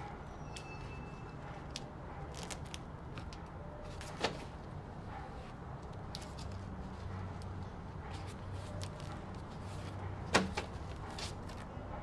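Banded bundles of paper banknotes set down into a cardboard box: two sharp thuds, about four and ten seconds in, with lighter taps and paper rustles between, over a steady low hum.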